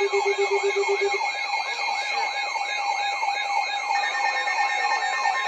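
Several emergency alert devices sounding at once for a severe thunderstorm warning: a siren-like tone wailing up and down about three times a second over steady alert tones. A rapid low beeping stops about a second in, and the wailing fades at about four seconds while the steady tones carry on.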